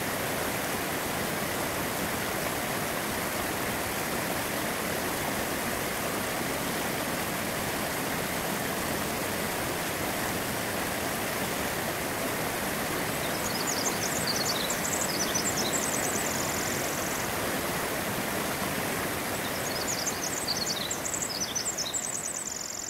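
Steady rush of whitewater from a rocky mountain creek and waterfall. High, quick chirping comes in twice over it in the second half.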